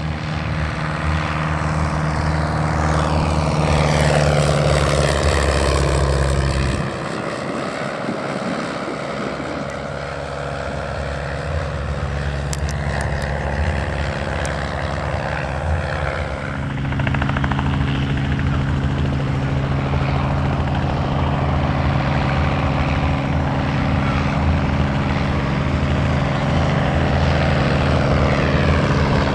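Single propeller engine of a Klemm L-25H ultralight replica in flight. It makes a low pass with the pitch falling as it goes by, the deep engine note drops off about seven seconds in, and from about halfway it runs steadily and louder again as the plane climbs and banks overhead.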